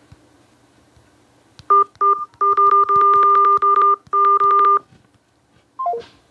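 Electronic phone tones from a smartphone speaker: a rapid series of short beeps at one fixed pair of pitches for about three seconds, then a quick three-note falling chime near the end.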